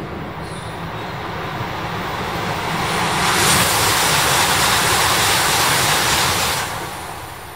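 E5-series Shinkansen passing at high speed: a rushing roar of air and wheels on rail that builds over the first three seconds, stays loud for about three and a half seconds, then falls away quickly.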